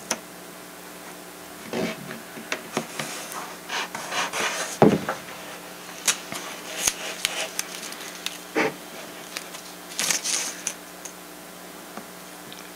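Irregular handling noises of a model airplane's foam wing: soft rubbing and light knocks as masking tape is pressed onto the glued joint of the wing halves. A sharper knock comes about five seconds in, and a faint steady hum runs underneath.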